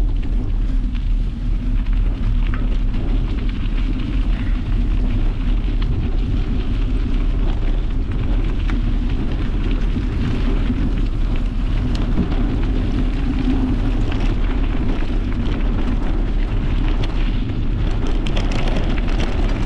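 Bicycle tyres rolling over a gravel trail: a steady crunching crackle of small stones, with a low wind rumble on the microphone.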